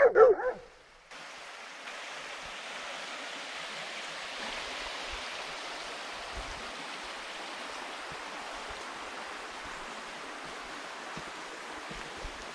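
A short loud call at the very start, then a small woodland stream running: a steady, even rush of water.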